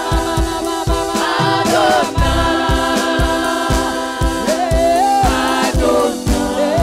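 A gospel worship song: women's voices singing together over backing music with a steady drum beat.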